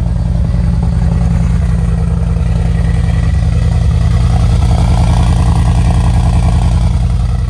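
Mansory-modified Mercedes-AMG G63's twin-turbo V8 idling just after start-up, a deep, pulsing exhaust rumble from its side-exit twin pipes, growing a little louder around the middle.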